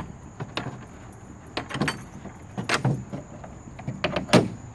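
Wooden ramp planks and their metal hinge knocking and clinking as the hinged ramp section is pivoted by hand: a string of separate knocks, the loudest about four seconds in.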